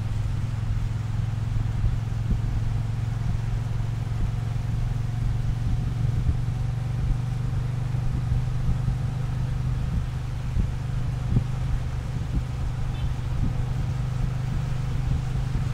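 Triumph Bonneville T120's parallel-twin engine running steadily at cruising speed, heard from the riding position with wind noise underneath.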